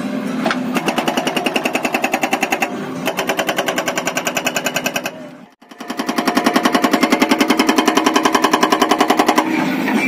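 Hydraulic rock breaker on a JCB 3DX backhoe loader hammering rock in rapid, evenly spaced blows over the steady hum of the diesel engine. The hammering breaks off briefly in the middle, then stops near the end, leaving the engine running.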